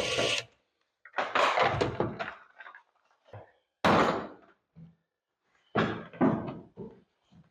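Clunks and rattles from a car's interior door panel being worked loose from its metal door, in several separate bouts, with one sharp bang about four seconds in.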